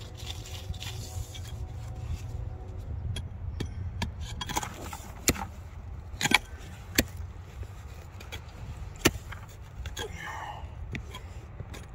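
Rock pick striking and scraping rock while digging: scattered sharp clinks and knocks at irregular intervals, four of them louder, over a steady low rumble.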